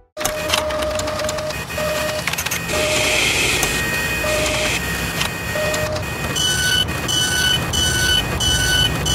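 Mechanical sound effects for an animated machine: steady whirring and clanking with many sharp clicks, and short tones coming and going. In the second half, high beeps repeat about twice a second.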